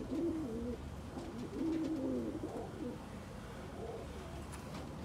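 Pigeons cooing in low, wavering phrases, repeated several times; the longest comes about two seconds in and a short one near the end.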